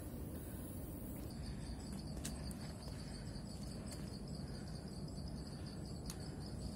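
Insects trilling in tropical forest: a steady, finely pulsing high trill that sets in about a second in, with a few faint clicks over a low hiss.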